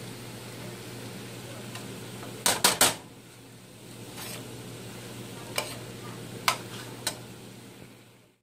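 Metal spoon stirring cauliflower fried rice in a stainless steel pan, clinking against the pan: three quick loud knocks about two and a half seconds in, then single clinks every second or so. A soft steady sizzle and a low hum run underneath.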